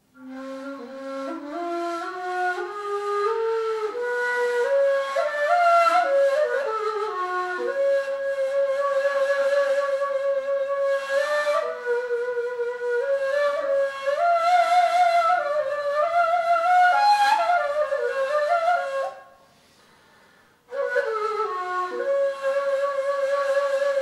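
Solo ney, the Turkish end-blown cane flute, playing a slow melody in makam hicaz, breathy, with sliding pitches. It opens with a phrase climbing step by step, stops near the end for about a second and a half, then starts again.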